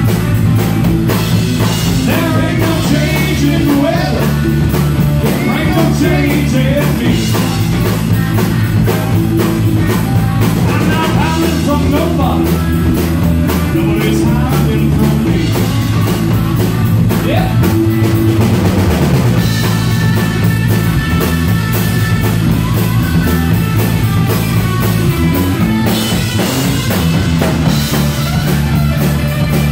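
A live rock band playing electric guitar, electric bass and a drum kit, with a man singing in the first part. Near the end the singer steps back from the microphone and plays guitar.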